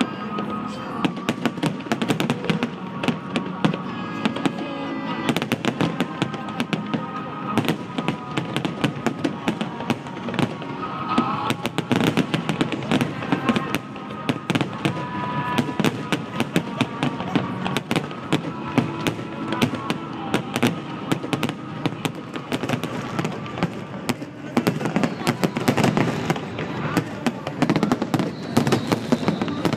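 Fireworks display: many aerial shells bursting in a dense, unbroken run of bangs and crackling, with music playing beneath.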